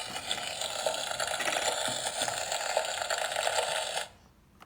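Toy kitchen stove playing its electronic sizzling sound effect through a small speaker, a steady frying hiss and crackle that cuts off suddenly about four seconds in.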